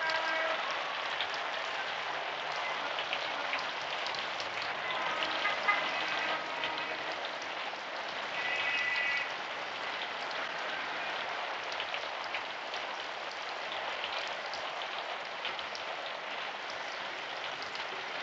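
Steady rain falling on a street, a dense even hiss of rainfall. A few brief high tones sound faintly through it, the clearest about nine seconds in.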